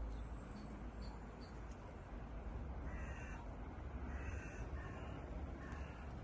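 A bird giving several short, repeated calls, starting about halfway through, over a steady low rumble.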